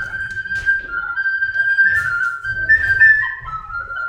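Music: a single high flute-like melody moving in stepped notes, with a low rumble beneath it.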